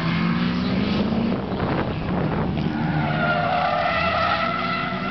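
Race car engines running as cars brake and accelerate through a tight hairpin. From about three seconds in, tyres squeal loudly as a car slides hard through the corner.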